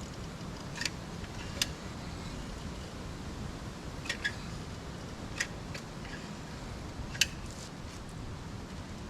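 Steady low rumbling background noise with about six short, sharp clicks or taps scattered through it, the loudest near the end.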